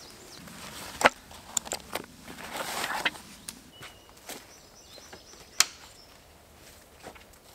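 Footsteps on the woodland floor, then sharp wooden knocks and rattles as a slatted wooden door panel on a log shed is grabbed and moved. The loudest knock comes about two-thirds of the way through. A bird chirps briefly.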